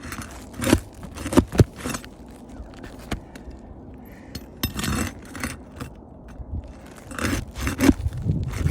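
Scraping and sharp metallic clicks and knocks of rusted roofing nails being worked out of roof shingles, irregular throughout.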